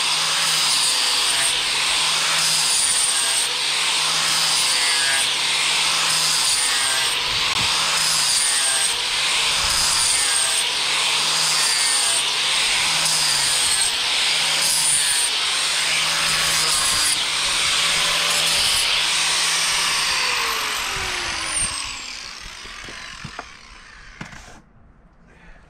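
Electric angle grinder with an abrasive disc sanding across a fir board, its sound swelling and dipping in even sweeps a little over a second apart. About twenty seconds in it is switched off and winds down with a falling whine, fading out.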